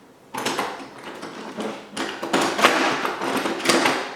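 Workshop handling noise: small tools and bike parts being picked up, rummaged and clattered in several uneven bursts.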